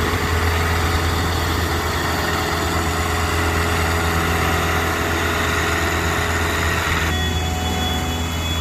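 Engine of a CSX rail maintenance-of-way machine running as the machine rolls slowly along the track, a steady low drone under a broad rushing noise. About seven seconds in the rushing noise drops away, leaving the drone and a thin high steady tone.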